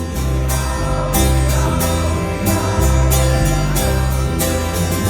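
Live rock band playing a steady instrumental passage between sung lines: drum hits and a moving bass line under held chords.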